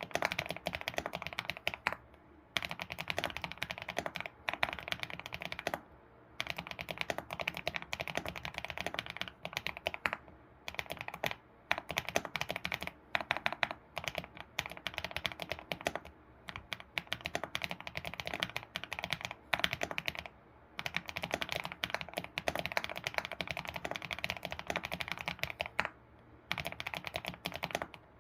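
Fast typing on an ABKO keyboard: quick runs of key clicks broken by brief pauses every few seconds.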